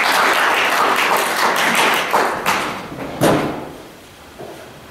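Audience applauding, dying away about three and a half seconds in, with one loud thump just before it ends.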